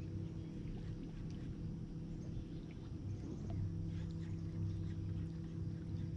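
A bass boat's motor running with a steady low hum.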